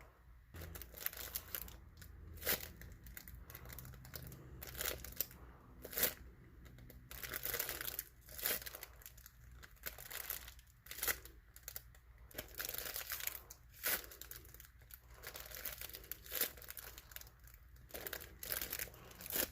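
Irregular crinkling and rustling handling noise: a homemade squishy being squeezed and turned over in the hands, in uneven bursts a few times a second.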